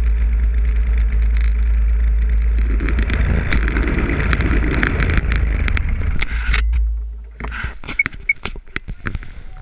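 Snowmobile engine idling steadily, then shutting off and dying away about seven seconds in. After it stops come scattered clicks and knocks close to the microphone, with two short high beeps.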